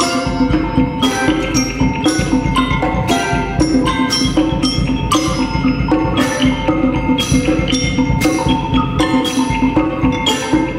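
Live percussion ensemble playing a steady, repeating pattern of struck notes, with ringing pitched tones sustained underneath.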